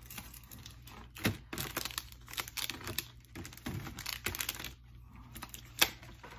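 Plastic chocolate wrapper crinkling and tearing as it is handled and opened, in irregular crackles with a sharper snap near the end.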